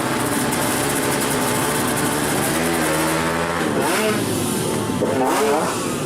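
Motorcycle engine revving amid a loud, noisy din, holding a steady pitch for about a second and then rising and falling in pitch twice.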